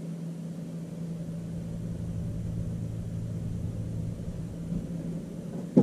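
Electric bow-mounted Minn Kota trolling motor running with a steady low hum. A brief loud thump comes near the end.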